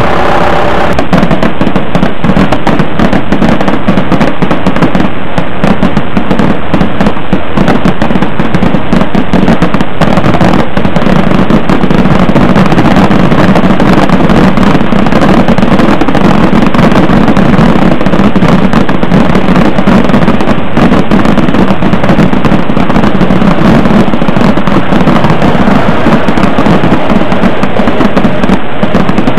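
Fireworks on the tail of a fogueteiro (fireworks-carrying) paper balloon going off in a dense, unbroken crackle of pops, very loud, starting about a second in.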